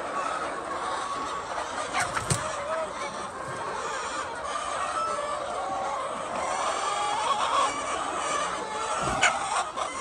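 A flock of laying hens clucking and chattering continuously, many birds calling over one another, with a few sharp clicks about two seconds in and again near the end.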